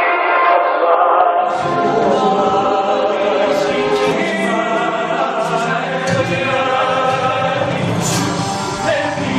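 Choral music: a group of voices singing a musical-theatre number over accompaniment. A bass line comes in about a second and a half in, and the low end fills out around six seconds in.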